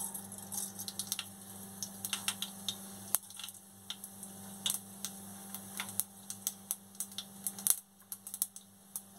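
Whole mustard seeds popping and crackling in hot oil in a non-stick kadai: irregular sharp clicks, several a second, the sign that the oil is hot enough for the tempering. A steady low hum runs underneath.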